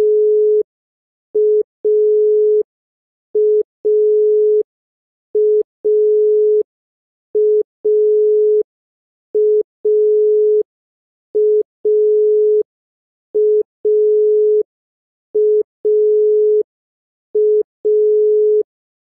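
East German (DDR) telephone dial tone, in its second listed form: a single steady tone keyed on and off in a short-long pattern, a short beep then a longer one, repeating about every two seconds.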